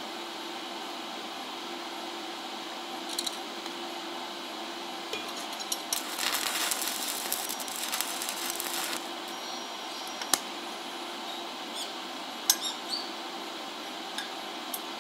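Stick (arc) welder striking an arc on steel plate: the arc crackles and sputters for about three seconds in the middle, followed by a few sharp metallic clicks, over a steady hum.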